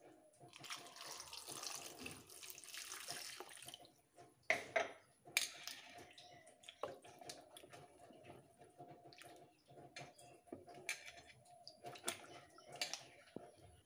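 Water poured into a plate of peeled carrots for about three seconds. Then the carrots are rubbed and swished by hand in the water, with small irregular splashes.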